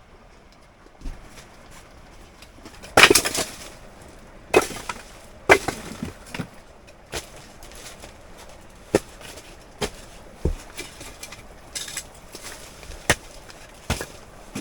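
Dry firewood being split and handled: irregular sharp knocks and cracks of wood, the loudest and longest about three seconds in.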